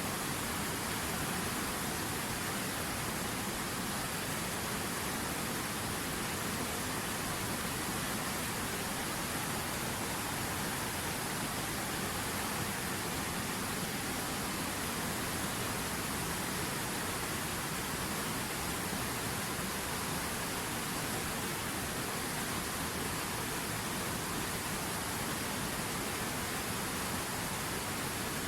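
River water running: a steady, unbroken rushing.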